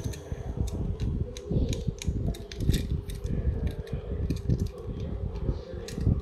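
Light, irregular clicks and rubbing as fingers grip and turn a Tomica die-cast toy car, a Toyota Passo, close to the microphone, over a faint steady hum.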